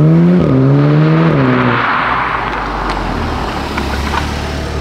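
Volkswagen Golf 7.5R's turbocharged 2.0-litre four-cylinder accelerating hard with its pitch climbing, a brief dip at a gearshift about half a second in, then the throttle closes just under two seconds in with a short hiss, and it settles to a low rumble.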